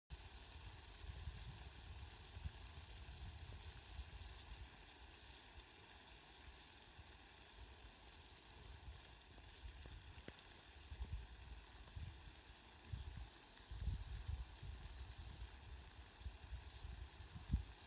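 Light rain falling: a soft, steady hiss, with irregular low rumbling that grows in the second half.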